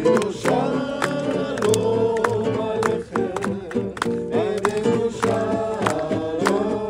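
Several voices singing a worship song together to strummed acoustic guitar.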